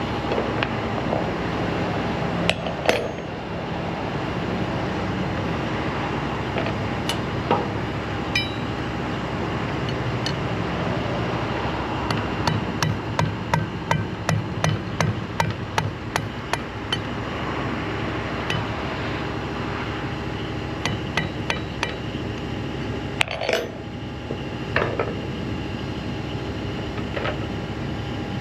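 Hammer blows on steel, driving the wedge out of a crane's wire-rope wedge socket: a few scattered strikes, then a quick run of about three or four blows a second for several seconds in the middle, then a few more near the end, over a steady machine hum.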